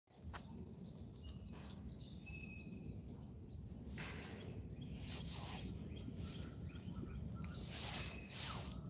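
Outdoor noise on a handheld phone microphone while walking: a low, steady rumble of wind and handling, with a few faint bird calls and some louder rustling surges.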